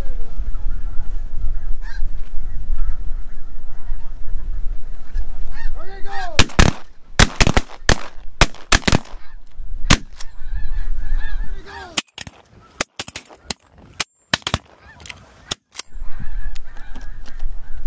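A large flock of snow geese calling overhead, with wind rumble on the microphone. About six seconds in, several shotguns open fire in a rapid volley of well over a dozen shots lasting about ten seconds, after which the goose calls carry on.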